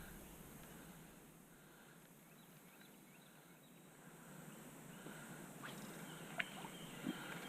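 Quiet riverside ambience with faint, small chirping animal calls, and a few short sharp ticks in the second half.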